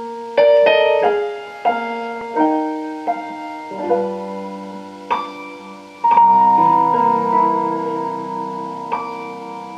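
Solo piano introduction to a recorded song, chords and melody notes struck in turn with a strong chord about six seconds in, played back through a single-ended 6P25 (EL33-equivalent) valve amplifier and loudspeaker.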